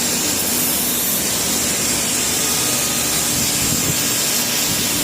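Steady, loud machinery noise with a strong hiss and a faint low hum, as of running industrial equipment.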